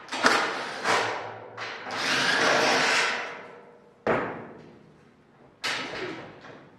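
Hand work on a welded steel-tube fuselage frame: a series of sharp knocks, each fading over a moment, with a longer rough noise lasting about a second after the first few knocks.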